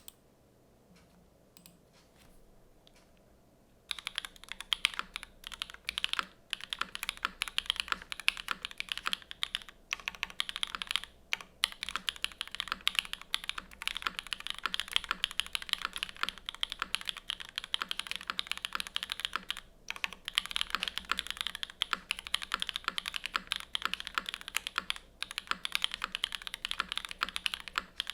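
Mechanical keyboard with stock Gateron RAW linear switches, an o-ring-mounted polycarbonate case and aluminium plate, typed on at speed. After about four seconds of near quiet with a few faint clicks, fast continuous typing begins and goes on with a few short pauses.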